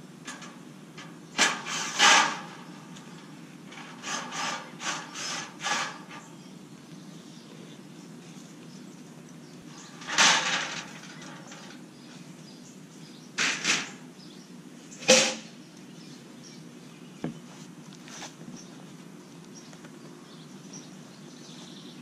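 Irregular knocks, clatters and scrapes of handling as the aluminum guide plank is lifted off the ash log and the cut slab is moved. The two loudest come about two seconds in and about fifteen seconds in, with a quick cluster of smaller ones between about four and six seconds, over a steady outdoor background.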